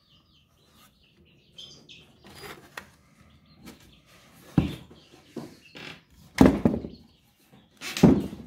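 Handling knocks and bumps against wooden boards and a cordless drill, with three louder thumps in the second half. Birds chirp faintly in the background.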